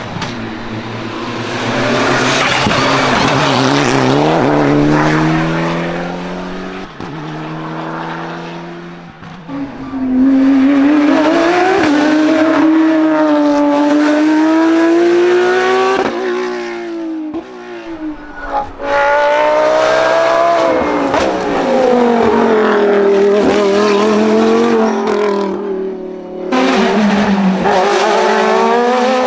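Racing car engines at high revs, climbing in pitch through each gear and dropping at the shifts and lifts, in several loud passages, with some tyre squeal.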